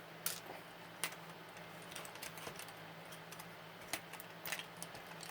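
Scattered light clicks and taps of small plastic and metal parts as an RC truck's chassis is taken apart by hand, over a faint steady hum.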